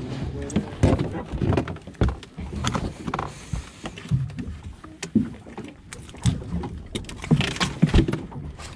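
Irregular knocks, thumps and rustles from handling a caught rockfish and a knife on a boat's deck, with the body-worn microphone rubbing on clothing.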